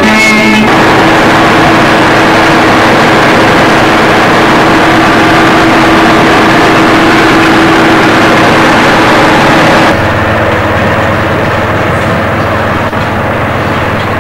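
Combine harvester running while harvesting, heard from inside the cab: a loud, steady machine noise with a steady whine through it. About ten seconds in, the sound changes to a somewhat quieter, lower engine hum.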